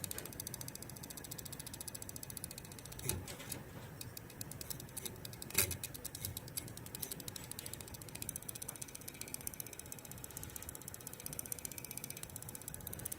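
Fans of a new Gigabyte Aorus GTX 1080 graphics card running with a rapid, even ticking, and two louder clicks about three and five and a half seconds in: an abnormal click noise from the card's fans.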